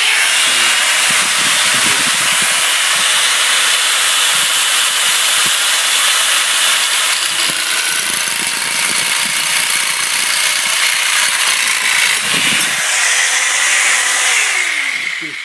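Power nibbler cutting aluminium sheet, its punch taking rapid small bites out of the metal: a loud, steady, high chatter that runs without pause. The motor spins up as it starts and winds down near the end.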